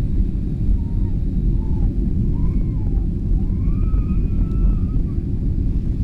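Steady low rumble of an airliner cabin on a landing approach: engine and airflow noise, with faint voices in the background.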